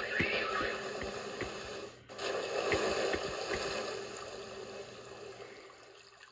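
Cartoon sound effect of water gushing, in two surges with a short break about two seconds in, the second dying away toward the end.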